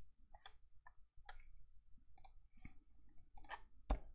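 Keystrokes on a laptop keyboard: a run of faint, irregular key clicks, with one sharper click near the end.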